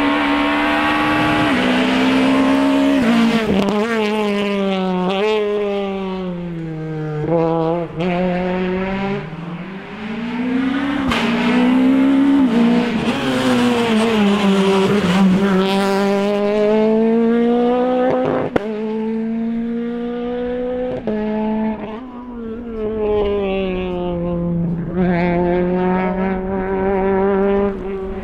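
Peugeot 208 R2 rally car's 1.6-litre four-cylinder engine driven hard. The revs climb, drop at gear changes and fall away as the car lifts for corners, over and over, with a few sharp cracks.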